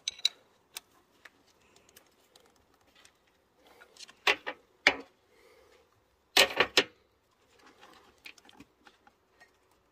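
Scattered light clicks and knocks from hands handling a new timing belt and its sprocket in a Volkswagen Golf's engine bay, with a few sharper knocks around four to five seconds in and the loudest cluster of knocks a little later.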